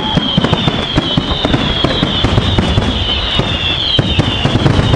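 Fireworks display: a dense run of crackling bangs and pops over a low rumble, with several high whistles overlapping that each slowly fall in pitch.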